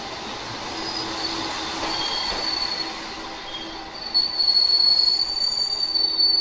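Moka Railway diesel railcar moving slowly through the station, its steel wheels giving a high, thin squeal that grows much louder about four seconds in.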